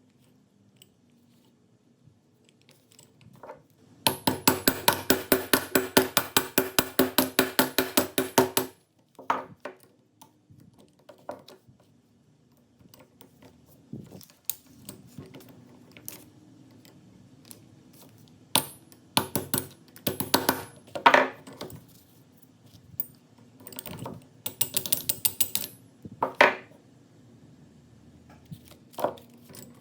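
Metal vise parts being handled: a loud run of rapid, evenly spaced metallic clicks, about eight a second, for several seconds. This is followed by scattered clinks and short rattles of metal on metal.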